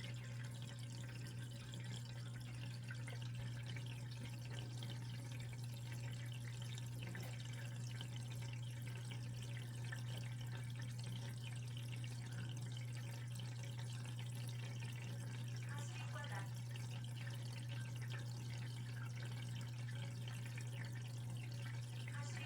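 Aquarium water trickling and dripping steadily over a constant low hum.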